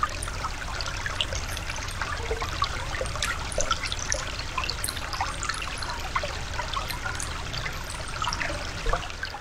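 A shallow woodland brook trickling over rocks, with a steady wash of water and many small irregular gurgles.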